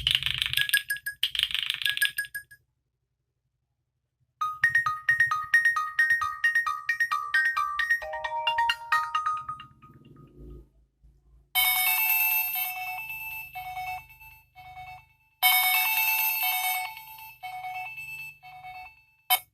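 Nokia 6 ringtones played one after another: a chiming tone that ends about two seconds in, then after a short silence a quick melody of short plucked-sounding notes stepping down in pitch, then a brighter electronic melody of pulsing notes that plays its phrase twice.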